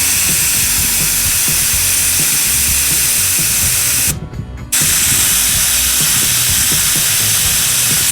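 Air hissing hard out of a 37x12.50R17 Mickey Thompson off-road tyre as it is let down toward 12 psi, in two long releases with a brief stop about four seconds in.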